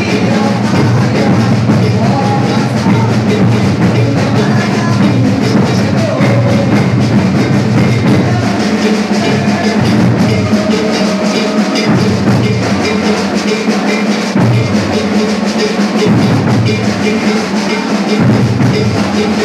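Maracatu percussion ensemble drumming: deep bass drums and snare drums playing a dense, driving rhythm. The deep drums drop out for short breaks several times in the second half.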